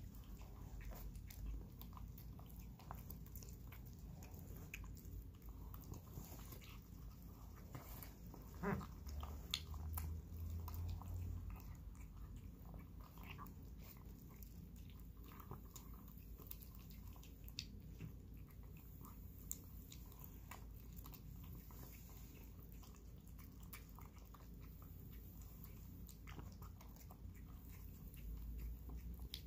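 A cat eating smooth pâté wet cat food from a bowl: faint, repeated small chewing and lapping clicks. A single louder knock sounds about nine seconds in.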